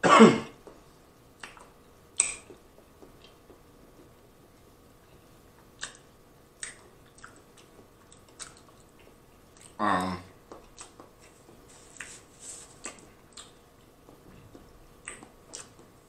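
A person eating boiled crawfish: chewing, wet lip smacks and small mouth clicks. There is a short throaty vocal sound right at the start and another about ten seconds in.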